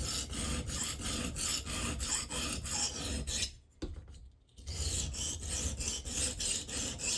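Stainless knife blade stroked rapidly back and forth on a wet 220-grit diamond sharpening stone, a gritty rasping at about five strokes a second, with a pause of about a second midway before it resumes. Coarse-grit reprofiling of a damaged edge, raising a burr.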